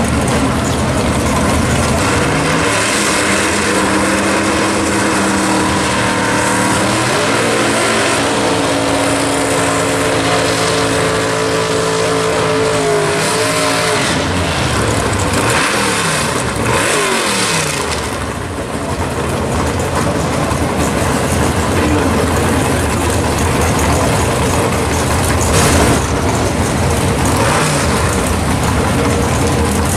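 Chevy II Nova drag car's engine held at high revs through a rear-tyre burnout, its pitch climbing in steps, then dropping away in falling sweeps about halfway through. After a brief dip it runs loud and rough at a lower, steady speed.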